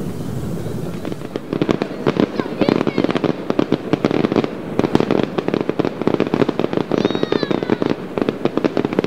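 Fireworks crackling: a dense, rapid crackle of many small bursts starts about a second in, after a short steady rumble, and keeps going.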